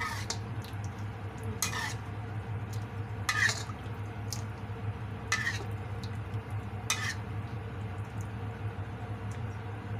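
Metal spatula scraping and clinking against a wok while basting a whole chicken with hot soy-sauce braising liquid, which sizzles softly. Four sharper scrapes come about a second and a half apart over a steady low hum.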